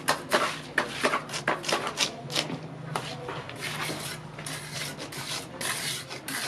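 Gloved hands rubbing and scraping wet cement render on a wall in quick repeated strokes, over a low steady hum.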